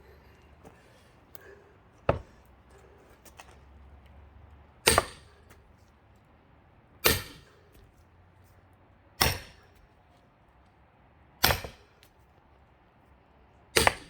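Six heavy, sharp blows about two seconds apart, each with a brief ring, splitting a thick pine log for firewood with an axe and hammer.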